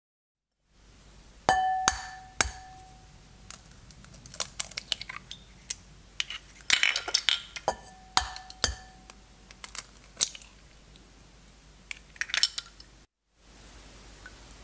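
Eggs being cracked into a ceramic bowl. Twice, an egg is tapped three times against the bowl, which rings briefly after each tap, and then its shell crackles and snaps as it is pulled apart.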